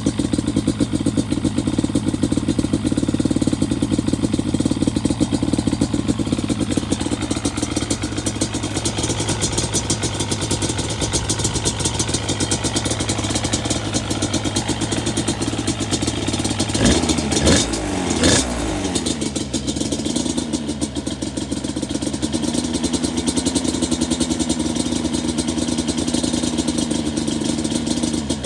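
Yamaha Banshee's 350cc twin-cylinder two-stroke engine idling steadily. About two-thirds of the way in it is blipped twice with quick rises and falls in pitch, then settles back to a slightly uneven idle that still needs tuning.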